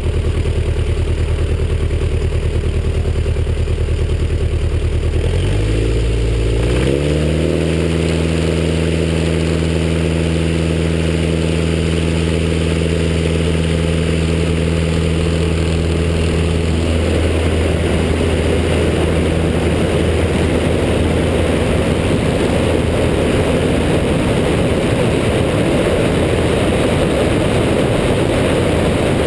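Stampe SV.4 biplane's engine running steadily at low power, stepping up in pitch about six seconds in. From about seventeen seconds in, a loud rushing of wind on the wing-mounted camera drowns out the engine note as the biplane speeds up on its takeoff run.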